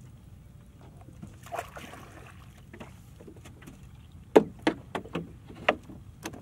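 Small wooden fishing boat on the water, with a low steady rumble and a brief rustle early on, then a quick run of about six sharp knocks and clatters on the wooden hull near the end as the fisherman reaches over the side for the net.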